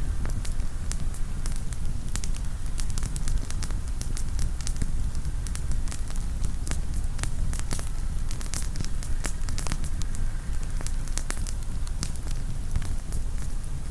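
Campfire of burning firewood crackling, with frequent irregular sharp pops and snaps over a steady low rumble.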